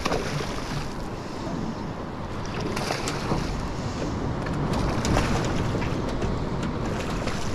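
Steady wind noise on the microphone over water lapping at a boat's hull, with a hooked fish splashing at the surface right at the start.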